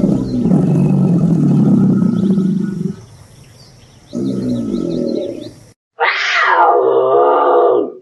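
Deep rumbling growls from a caiman, one long and one shorter about four seconds in. About six seconds in, a Eurasian lynx gives a yowling cry that starts high and slides down.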